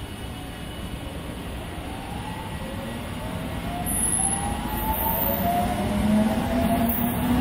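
Korail Seoul Subway Line 1 electric train pulling away from the station, its traction motors whining in several tones that climb in pitch together as it gathers speed, over a low rolling rumble that grows louder.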